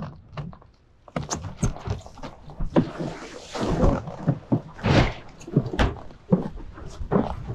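Irregular knocks and thumps from a windsurf foil rig and its mast-mounted camera, mixed with rushing bursts of water spray and wind on the microphone, while the board is jibed.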